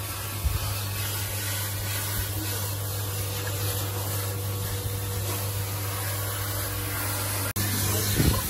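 Water spraying steadily from a dog-bath hose over the steady hum of the hydro-bath's pump, briefly cut off about seven and a half seconds in.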